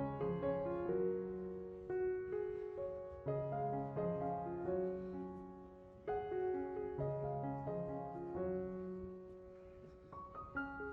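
Background piano music: a slow, gentle melody of struck notes that ring and fade, in phrases of about two seconds.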